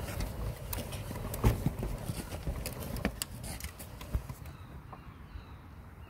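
Plastic toy ride-on car rattling and knocking as it rolls and bumps along a garden path, over a low rumble, with one sharp thump about a second and a half in. The knocking dies down over the last second or two.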